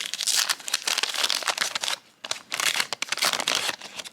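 Wax-paper baseball card pack wrapper being torn open and crinkled, a dense crackling with a brief pause about two seconds in.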